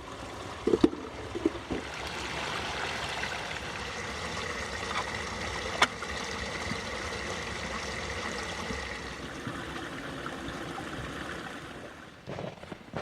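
Water running steadily for about ten seconds, with a few sharp knocks near the start and one in the middle.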